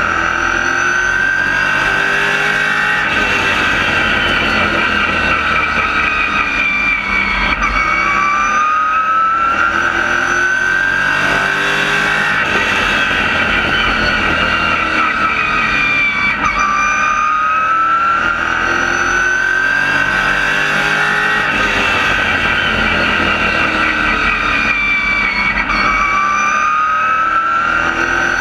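Race car engine heard from inside the cockpit under racing load, its revs climbing steadily then dropping off in a repeating cycle about every four seconds as the car accelerates and lifts around the oval, over steady road and wind noise.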